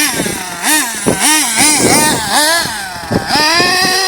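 Small nitro engine of a 1/8-scale GS Storm off-road RC buggy revving, its high whine rising and falling several times as the throttle is opened and closed.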